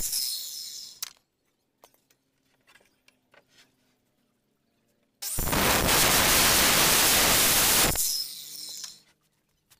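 Handheld electric circular saw cutting along a wooden board. The blade winds down over the first second, and after a few seconds of near quiet with a few light knocks, it cuts steadily for about three seconds and winds down again.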